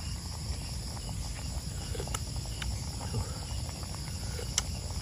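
Night chorus of crickets and other insects, a steady high-pitched chirring, over a low steady rumble, with a few faint clicks about two seconds in and near the end.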